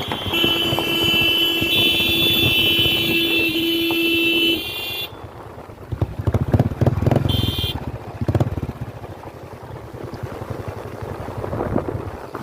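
A motorcycle horn held steadily for about four seconds, then motorcycle engine and riding noise in uneven surges, with another brief horn toot about halfway through.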